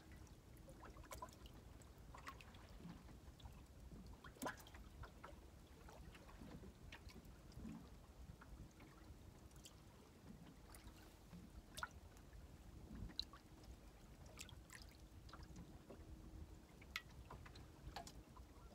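Near silence: faint water lapping at the boat, with a few soft clicks and ticks from fishing tackle being handled while a jig is swapped on the line.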